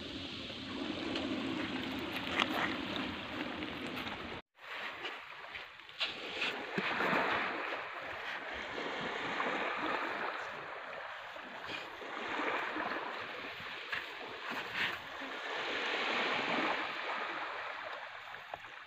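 Surf washing onto a beach, swelling and falling back every few seconds. The sound cuts out for an instant about four and a half seconds in.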